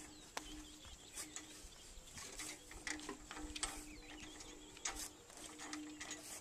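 Scattered metallic clicks and knocks of hand tools and pipe fittings being worked during a pump installation, with birds calling in the background.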